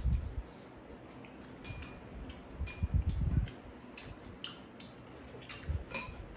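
Spoons and chopsticks clinking lightly against bowls, a dozen or so scattered sharp ticks, some ringing briefly, while two people eat cold cucumber soup. There are soft slurps at the start and again about three seconds in.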